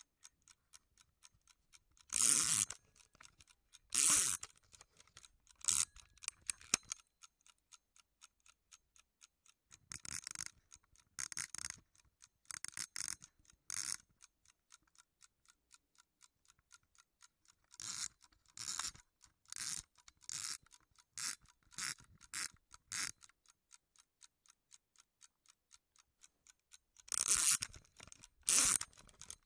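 Old mechanical wind-up alarm clock ticking steadily while it is set and wound. Four spells of louder ratcheting scrapes come from its knob being turned.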